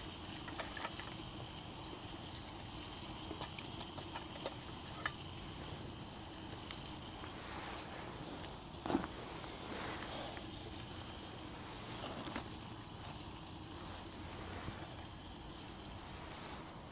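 Chicken sizzling in a stainless-steel frying pan on a Kelly Kettle hobo stove, a steady hiss, with the small wood fire beneath crackling now and then. A louder knock about nine seconds in.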